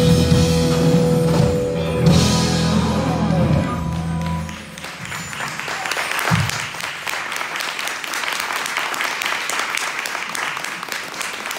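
A live band with electric guitars, bass and drum kit holds a final chord, with a cymbal crash about two seconds in, and stops about four and a half seconds in. A single low thump follows, then an audience applauds.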